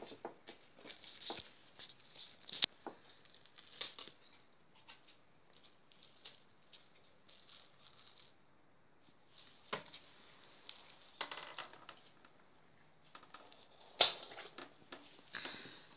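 A cat biting and tearing at a feather wand toy: irregular small clicks, scratches and rustles of teeth and claws on the toy and rug, with a few sharper clicks, the loudest near the end.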